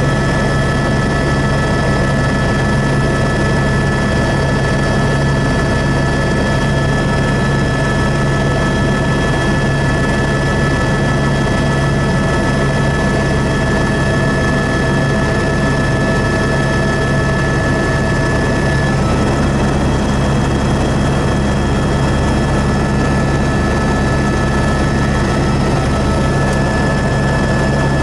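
Helicopter in flight, heard from inside the cabin: a loud, steady drone of rotor and engine, with several constant high tones over a low rumble.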